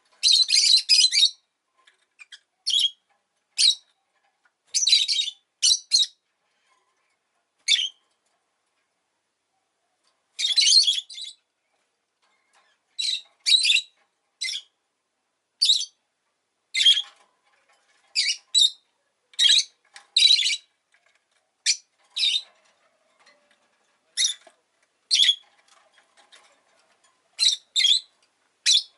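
Rosy-faced lovebird calling: short, shrill chirps and squawks, some single and some in quick runs, with short silences between them.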